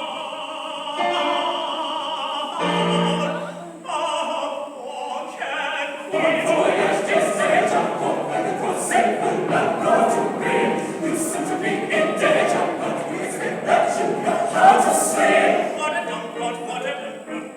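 Choir singing in harmony: held chords for the first few seconds, then fuller, louder and busier singing from about six seconds in.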